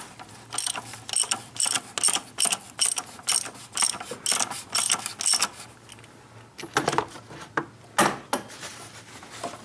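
Ratchet wrench with a 24 mm socket clicking in quick strokes, about two to three clicks a second, as it unscrews the oil filter housing cap, followed by a few louder knocks near the end.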